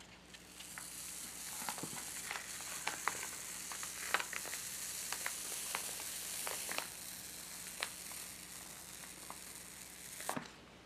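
Printing paper being slowly peeled off a freshly inked woodcut block: a steady, crackly hiss as the tacky ink lets go of the sheet, with scattered small ticks. It stops about ten seconds in, once the sheet is off.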